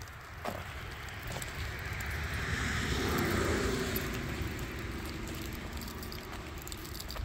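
A car passing on the road, its tyre and engine noise swelling to a peak about three seconds in and then slowly fading.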